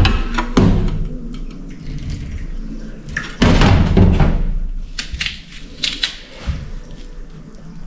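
Food-prep handling noise: a knife and hands working a red onion over a tray on a stainless steel sink, with scattered clicks and scrapes and two louder rustling thumps, one at the start and one about three and a half seconds in.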